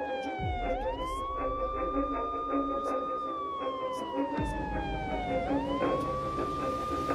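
Siren wailing in a slow cycle: the tone rises quickly, holds high for about two seconds, then slides slowly down before rising again, twice in a few seconds. Under it are a steady low drone and faint regular ticks.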